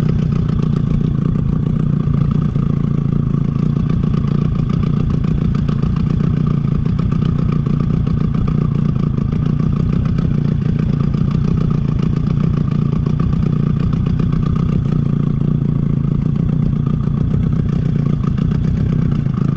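Small outboard motor running steadily at low trolling speed, a constant even hum heard from aboard the boat.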